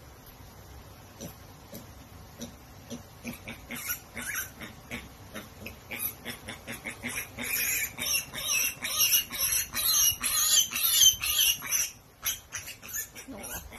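Mini pig squealing and grunting in a rapid string of short, harsh, high-pitched calls that grow louder and faster from about four seconds in, loudest around nine to eleven seconds, then break off shortly before the end.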